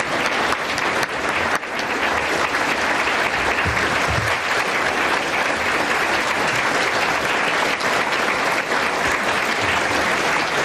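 Large audience applauding steadily: many hands clapping in a dense, even wash of sound.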